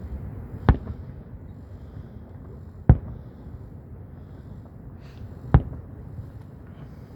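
Fireworks display: three sharp, loud shell bursts about two to three seconds apart, over a low background rumble.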